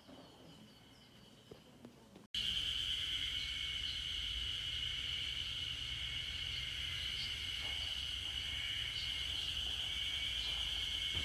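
A steady, high-pitched insect chorus in forest trees, faint at first with a few small chirps, then loud and continuous from about two seconds in, with low noise underneath.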